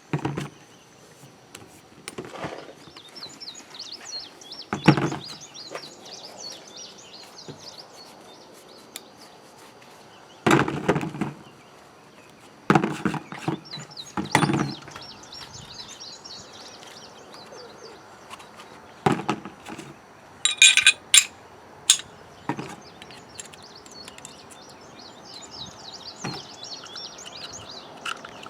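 Scattered knocks and metallic clicks of a mud-fouled Glock 40 10mm pistol's parts being cleaned and put back together, with a quick run of sharp clicks about two-thirds of the way in. Birds chirp faintly in the background.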